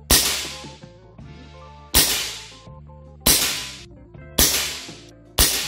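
Hatsan Invader 5.5 mm semi-automatic PCP air rifle firing five shots, one every second to second and a half, each a sharp crack followed by a short echo.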